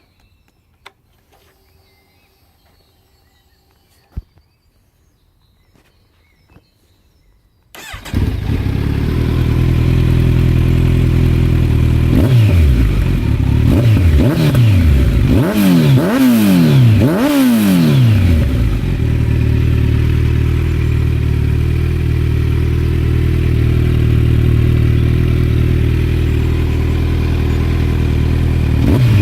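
Kawasaki Z900's inline-four engine, breathing through an Akrapovic full exhaust system with the dB-killer fitted, started up about eight seconds in after a couple of faint clicks. It settles into idle, is blipped up and down about half a dozen times in quick succession, then idles steadily again.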